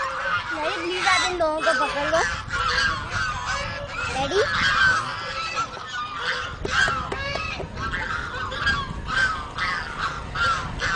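A flock of geese honking, many short calls overlapping without a break.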